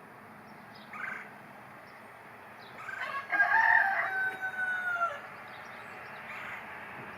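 A rooster crows once, a long call of about two seconds that holds its pitch and drops at the end, starting about three seconds in. A brief, fainter call comes about a second in.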